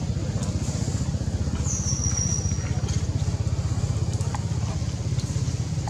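A motor engine running steadily, a low, fast-pulsing throb. A brief high squeak comes about two seconds in.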